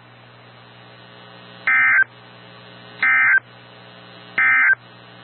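Emergency Alert System end-of-message data bursts: three short, identical digital warbles about 1.3 seconds apart, marking the end of the weather alert broadcast. A steady hum runs under and between them.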